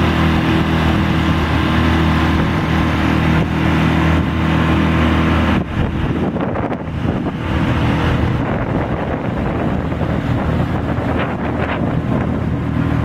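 Small Mercury outboard motor running steadily with the boat underway, a new motor still being broken in, with wind on the microphone and water rushing along the hull. About six seconds in the sound changes abruptly and turns rougher and windier.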